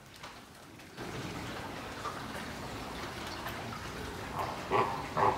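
A steady rushing noise starts about a second in, with a few short, loud animal calls near the end.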